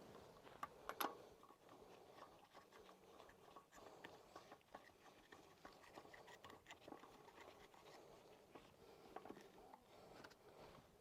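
Near silence, with faint scattered clicks and taps and a couple of sharper clicks about a second in.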